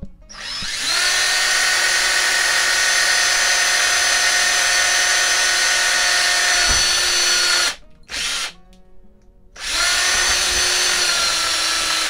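Power drill boring a hole through the aluminum frame of an RV screen door. It spins up and runs for about seven seconds, gives one short burst, then runs again for about two seconds.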